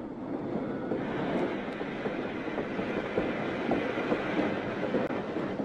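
Passenger train running along the line, a steady rumble of wheels on the rails.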